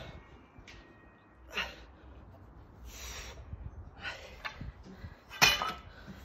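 A man's heavy, hissing breaths during repeated barbell lifts, a forceful exhale with each rep. A much louder burst comes about five and a half seconds in, as the loaded barbell is dropped onto the grass.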